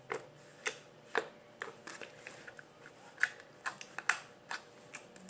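Slime being squeezed and worked by hand, giving about a dozen small, sharp pops and clicks at irregular intervals as bubbles in it pop.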